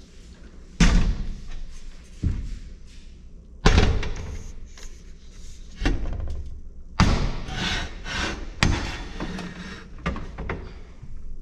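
Photovoltaic panel being lowered and set down on aluminium mounting rails: a series of sharp thumps and clunks, about one every second or two, each trailing off with some ringing.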